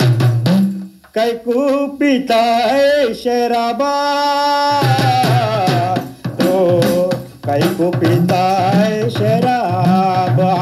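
A devotional song, a voice singing a melody over a regular drum beat, with one long held note near the middle.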